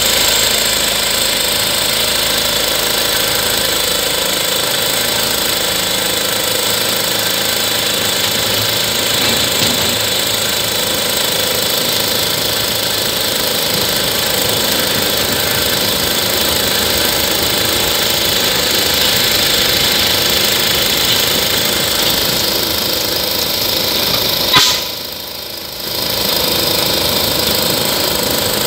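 Engine of a small railway locomotive running steadily while it hauls the wagon along the track, with a constant rattling clatter. About three-quarters of the way through there is one sharp click, and the noise dips for about a second before coming back.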